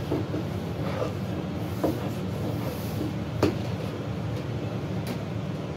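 A steady low rumble with a couple of sharp knocks, the louder one about three and a half seconds in.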